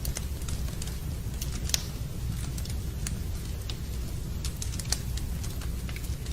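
Wood fire crackling in a fireplace: irregular small snaps and pops, two sharper ones about two seconds in and near five seconds, over a steady low rumble.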